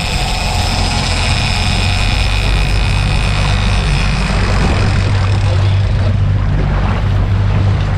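Yamaha 250 outboard motor running steadily with the boat under way, chasing a hooked fish, over water and hull noise.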